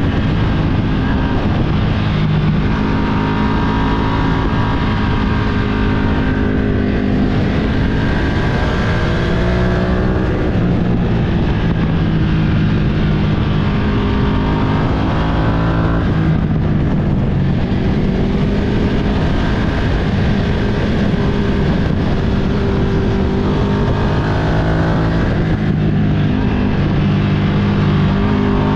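Ducati Streetfighter V2's L-twin engine running under changing throttle on a ride. Its pitch climbs, drops and jumps again and again through the gears, over a constant rush of wind.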